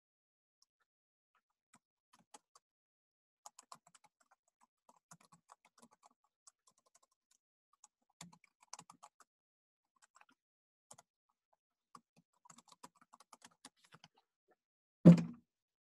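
Quiet keystrokes on a computer keyboard, scattered in short runs, then a single loud low thump near the end.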